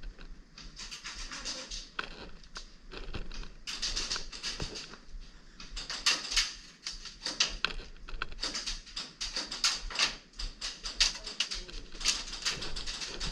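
Airsoft guns firing in rapid runs of sharp clicks, several bursts one after another with short gaps between them.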